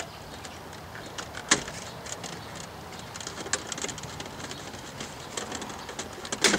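Plastic dash trim bezel of a 2003 Mustang being pulled out by hand: scattered light clicks and creaks of the plastic, with a sharp snap about a second and a half in and another near the end as its clips let go.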